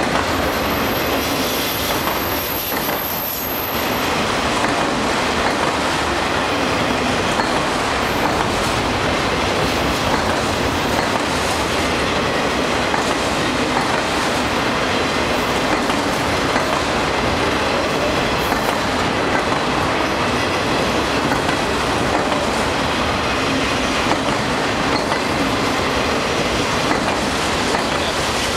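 Freight train of autorack cars rolling past: a steady, loud rolling noise of steel wheels on rail.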